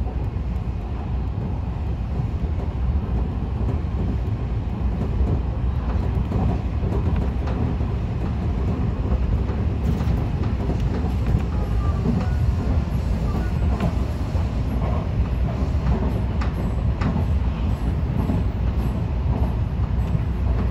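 Odakyu Enoshima Line electric commuter train running, heard from inside the front car: a steady low rumble, with the wheels clicking over rail joints now and then.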